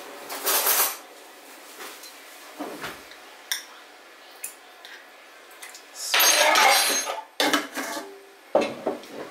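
Kitchenware being handled: a spoon, a cup and metal containers clink and knock, with a longer clatter about six seconds in.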